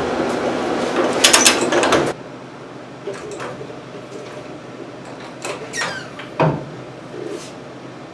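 Loud rattling metal-tool noise for about two seconds that cuts off suddenly, then a floor jack being worked under a truck's front suspension: scattered metallic clicks and one low clunk.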